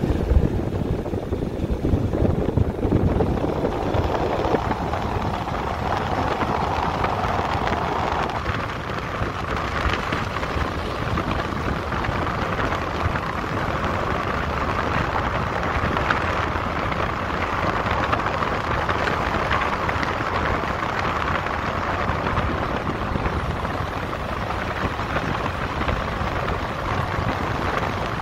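Steady rush of wind over a phone microphone held outside the window of a Toyota Hilux on the move, mixed with the tyres rolling over a gravel road.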